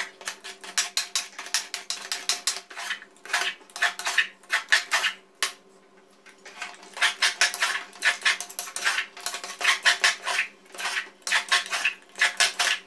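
A metal ladle scraping and clacking against the side and bottom of a metal pressure cooker pan as thick mung bean halwa is stirred, in quick runs of knocks with a short lull about halfway through.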